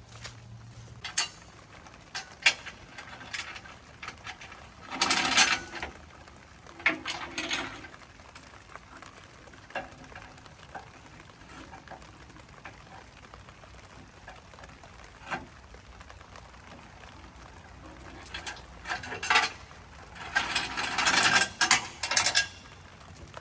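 Intermittent clanks, clicks and knocks of metal being handled, with two longer rattling stretches, one about five seconds in and one near the end.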